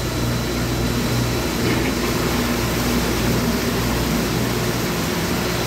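Steady mechanical hum with a rushing noise: the AccuTab chlorinator's booster pump, just repaired after its motor locked up, running while water flows in through a pipe to fill the slurry tank.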